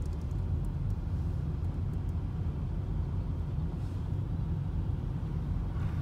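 Steady low rumble of a car driving, engine and tyre noise heard from inside the cabin.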